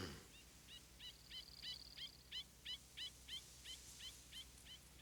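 A quick series of short bird-like chirps, about three a second, with a brief high trill among them about a second in, fading toward the end: an animal's call announcing its approach in a cartoon soundtrack.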